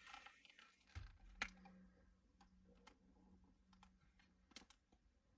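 Near silence, with a few faint clicks and taps of something being handled, the clearest about one and a half seconds in, over a faint steady hum.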